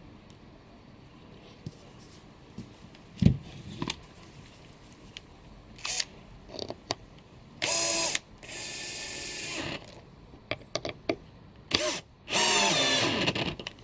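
Cordless drill running in two short bursts against a plywood loom part, the first run about two seconds long and the second about a second, with a few knocks of wood being handled before them.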